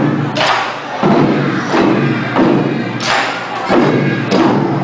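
Chinese barrel drum struck hard with wooden sticks in a steady beat, about one and a half strikes a second, with every other strike louder.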